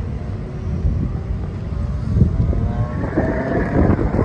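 Wind buffeting the microphone, with a car engine running in the background whose pitch rises in the second half.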